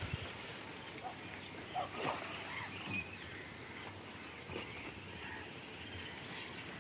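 Quiet outdoor ambience with a few faint, short chirps and some soft knocks in the first half.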